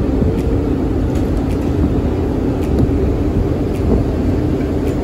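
Steady drone of a bus's engine and road noise, heard from inside the cabin with the windows open.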